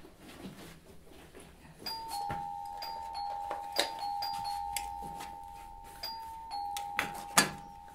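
Electronic apartment doorbell ringing: two steady tones alternating from about two seconds in and keeping on, with a few sharp knocks and clatters of things being handled.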